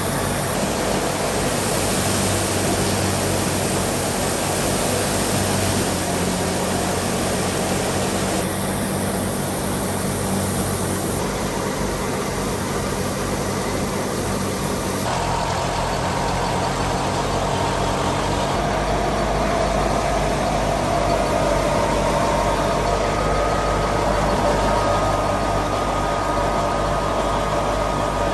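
Fiat 480 tractor's diesel engine running steadily under load as it drives a wheat thresher, mixed with the thresher's own machinery noise. The sound shifts abruptly several times.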